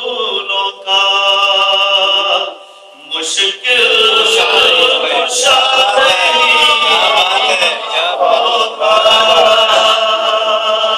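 A man's unaccompanied sung recitation of an Urdu devotional poem (naat) through a microphone: a long held note, a short break just before three seconds in, then the chanted melody resumes, fuller and louder.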